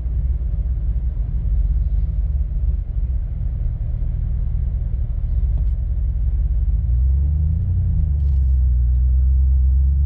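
Low, steady rumble of a pickup truck's engine and tyres on a snowy road, heard from inside the cab. About seven seconds in, the engine note rises briefly as the truck picks up speed.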